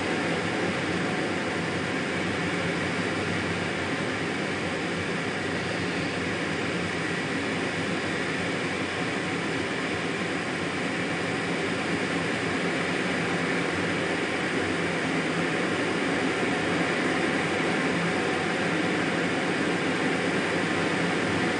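Steady jet engine and rushing airflow noise heard inside a jet aircraft's closed cockpit in flight, an unbroken hiss and hum with a faint steady whine, growing slightly louder in the second half.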